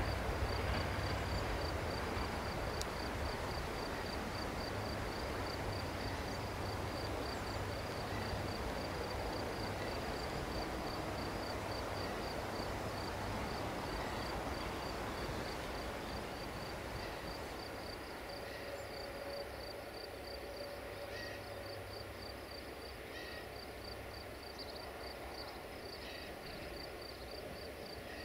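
Rumble of a passenger train fading slowly into the distance, while an insect chirps high and fast in an even, unbroken pulse.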